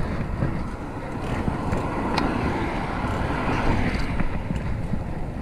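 Wind rushing over an action camera's microphone while cycling, with a car going by in the middle that swells and fades over about three seconds.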